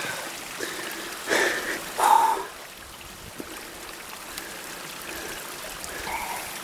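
Mountain stream running with a steady trickling wash of water. Two short, louder sounds come in the first couple of seconds.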